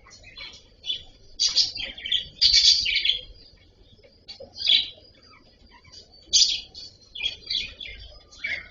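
Cockatiels chirping in repeated short, high bursts, with the loudest run of calls in the first few seconds. A faint steady high tone runs underneath.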